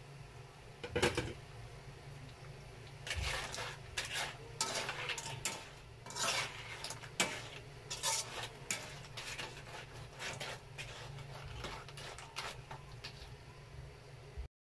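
A cooking utensil scraping and knocking irregularly against a coated wok as frying banana chips in a sugary coating are stirred and tossed, over a steady low hum. The sound stops abruptly near the end.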